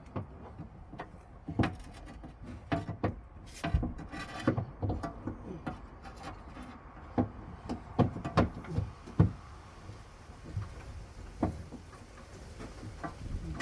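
Irregular clicks, knocks and rattles of parts being handled while working on a car door's panel, handle and lock mechanism, with a quieter spell around 10 to 12 seconds in.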